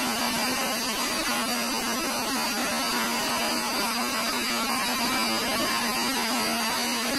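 Small electric motor blowing air: a steady whooshing hiss with a low, constant hum.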